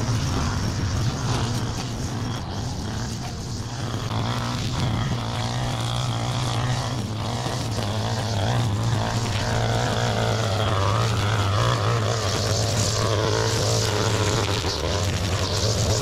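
Gas-powered string trimmer running steadily at working speed while its line cuts grass; the engine holds an even note, a little louder in the second half.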